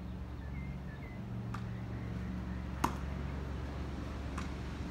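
Tennis rally: a tennis ball hit and bouncing, heard as three sharp pops about a second and a half apart, the middle one the loudest, over a steady low hum.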